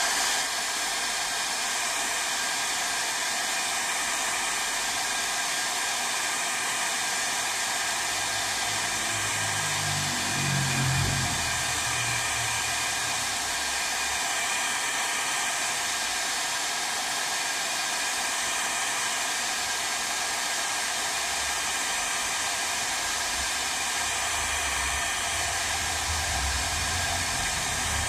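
Hair dryer blowing steadily, heating a phone's LCD and touchscreen assembly to soften the glue between them.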